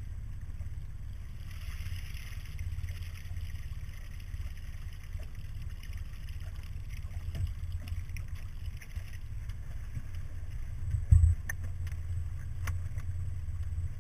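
Steady low rumble of wind and water on the onboard camera of a drifting RC race boat, with no engine tone, and one sharp thump about eleven seconds in.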